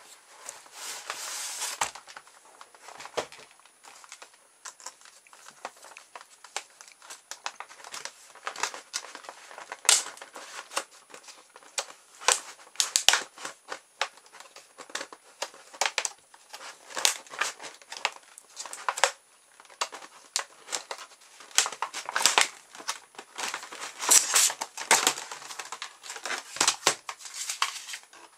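Product packaging being opened by hand: a cardboard sleeve slid off, then a stiff clear plastic clamshell pack crinkling and crackling as it is handled and pulled apart, in many short, sharp crackles.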